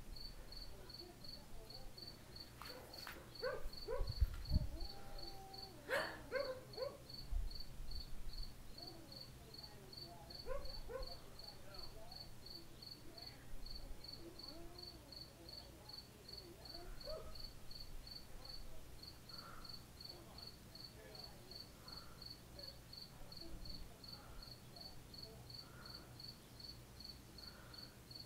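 A cricket chirping steadily, about two chirps a second, high-pitched. In the first half, scattered short faint calls and a few knocks and low thumps sound over it, the loudest about four to six seconds in.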